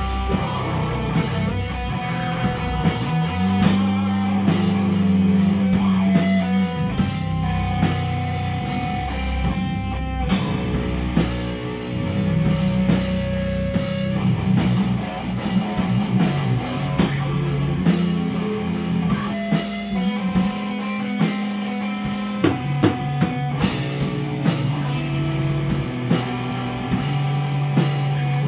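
Rock band playing: a drum kit with snare hits and cymbal crashes over held guitar and bass notes that change every second or two.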